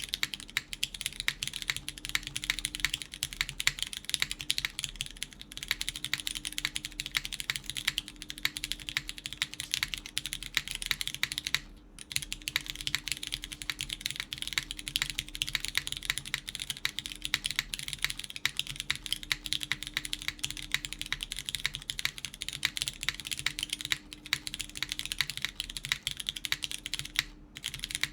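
Continuous typing on a gasket-mounted mechanical keyboard with lubed Cherry MX Brown tactile switches, an FR4 plate and GMK keycaps: a dense run of keystroke clacks, stopping briefly twice, about twelve seconds in and near the end.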